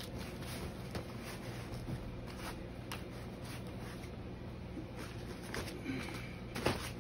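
Soft rustling and light clicks of hands handling gear and the fabric lid of a padded bow case, over a low steady hum. Near the end there is a louder brush as the lid is swung over to close.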